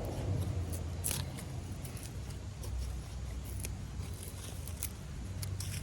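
Seedy Knives Skinny Dude, a thin CPM 1V steel knife, breaking up a piece of fatwood: a few short cracks and scrapes of blade in resinous wood, the sharpest about a second in, over a low steady background rumble.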